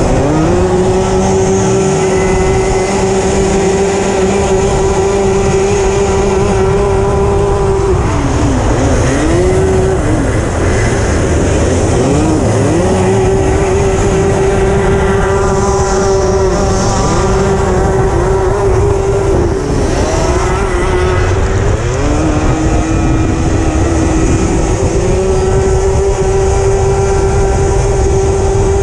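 Racing kart engine held at high revs, its note dropping and climbing back about four times as the driver lifts off and gets back on the throttle through the bends.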